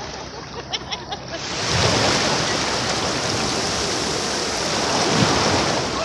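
Small waves breaking and washing up the sand at the water's edge. The hiss of surf is quieter at first, swells about a second and a half in, holds, and eases near the end.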